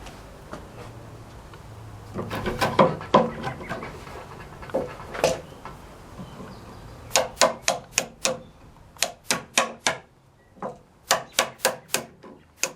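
Hammer tapping on wood to clear the waste left in a dado cut: a few irregular knocks early on, then from about seven seconds in quick runs of light, sharp taps, roughly four a second, with a brief pause.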